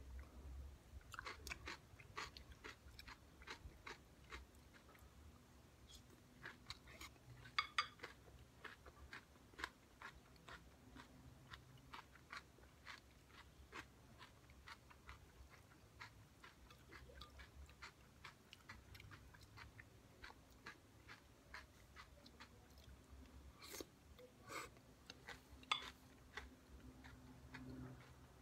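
Close-up chewing of a crunchy shopska salad of raw cucumber, tomato, onion and white cheese, with many short crisp crunches scattered throughout and a few louder bites now and then.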